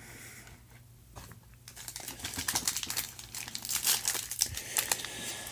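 Plastic foil wrapper of a 2019 Score football card pack crinkling and crackling as hands work at tearing it open, starting about a second and a half in. The wrapper is being stubborn about opening.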